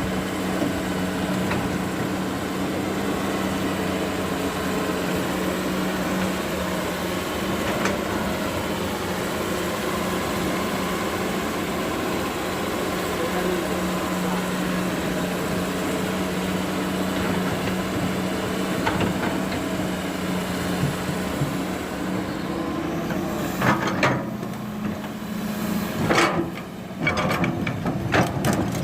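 Diesel engine of heavy earthmoving machinery running steadily, with a few sharp knocks and louder bursts in the last few seconds.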